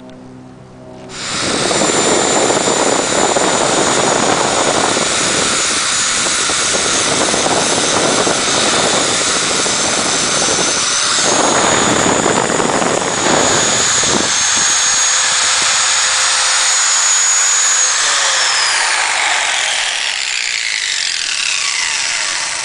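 DeWalt angle grinder starting up and running at full speed, its disc grinding the heads of screws down flat on a door panel. Near the end it is switched off and its high whine falls away as the disc spins down.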